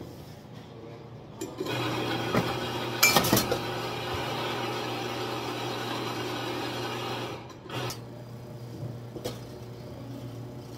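Espresso machine running with a steady hum and rush for several seconds, with loud metal clinks and knocks of portafilters being handled at the group heads about three seconds in. It then drops quieter, with a couple of light knocks near the end.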